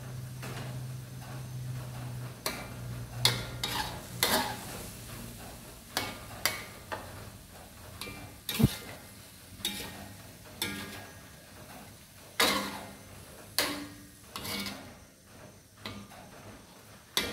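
Metal spatula scraping and knocking against a steel wok while cauliflower, squid and shrimp are stir-fried, the food sizzling underneath. The strokes come irregularly, about one a second, some with a short metallic ring.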